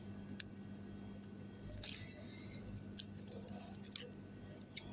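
Scissors cutting a piece of tape: a short rasp about two seconds in, then several sharp snips and clicks.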